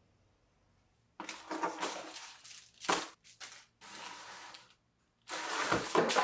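Thin plastic bags crinkling in several bursts as they are handled, the first about a second in.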